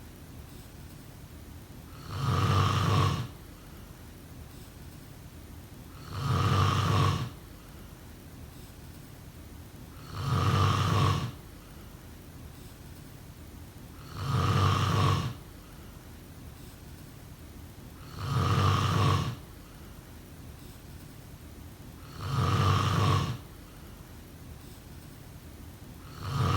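A person snoring: a snore about every four seconds, each lasting about a second, evenly spaced, with a faint steady hiss between snores.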